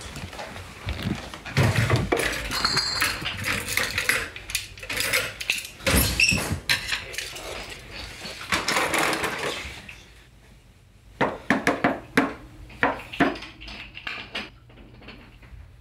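Metal kitchen utensils clattering and clinking as they are handled, ending in a run of separate sharp knocks and clicks in the second half.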